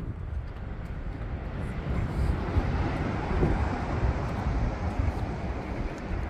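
Steady outdoor noise with an irregular low rumble on the microphone. A broad rush swells about two seconds in and eases off near the end.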